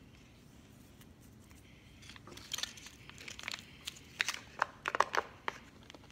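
Plastic toy packaging crinkling and snapping as it is handled and opened, in a run of sharp crackles that starts about two seconds in and is loudest near the end.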